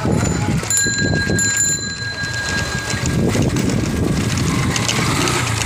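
Cycle rickshaw jolting along a rough, broken lane, its running noise a continuous low rumble. A steady high ringing tone sounds over it from about a second in until about three seconds in.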